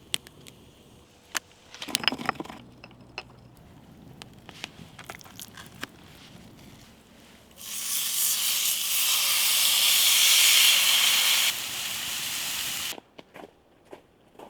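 A loud, steady hiss starts about seven and a half seconds in, lasts about five seconds and cuts off suddenly. Before it come scattered light clicks and crunches.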